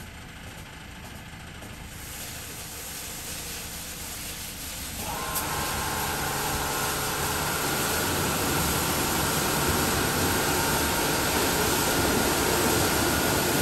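Automatic gantry car wash running over a foam-covered car, a steady hiss of spray and spinning brushes. About five seconds in it grows louder as a whining motor tone joins it, and the whole sound cuts off suddenly near the end.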